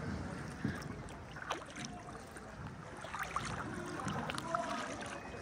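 Small rowed boat moving over calm river water: a steady wash of water around the hull and oars, with a few light knocks.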